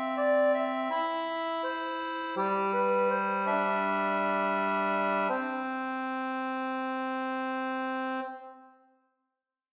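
Background music of slow, held chords that change every second or two, fading out near the end.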